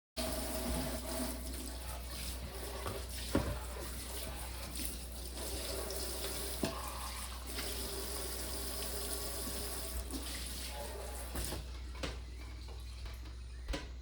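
Tap water running into a kitchen sink during hand dishwashing, with a few sharp clinks and knocks of dishes.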